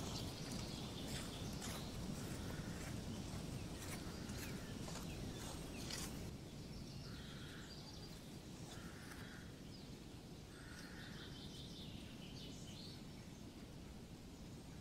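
Faint outdoor woodland ambience: a steady low background noise with a few bird chirps. Short scattered clicks come in the first half.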